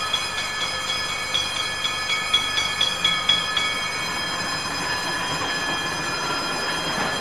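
Vintage tram's gong bell rung rapidly and repeatedly as it approaches a level crossing, stopping about three and a half seconds in, over the running rumble of the tram on its rails, which grows as it draws near.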